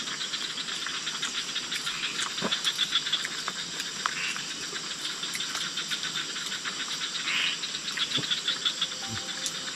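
Night chorus of tropical forest insects such as crickets: a steady high, rapidly pulsing trill. A few short, louder calls stand out over it, one near the middle and a longer one later. A couple of faint clicks come through.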